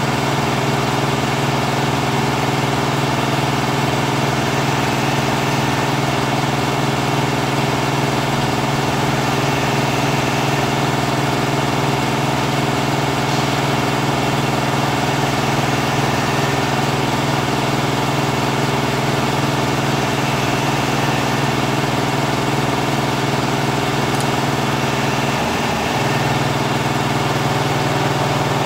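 Twelve-head Richpeace flat embroidery machine stitching at speed: a steady, rapid, even needle chatter from all the heads over a machine hum, with a brief dip near the end.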